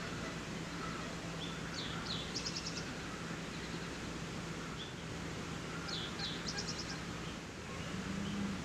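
A songbird sings the same short phrase twice, a couple of quick swept notes and then a fast run of about five notes, over a steady background hiss and a faint low hum.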